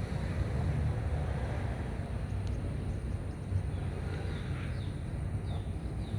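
Steady low rumble of outdoor background noise, with a few faint high bird chirps in the second half.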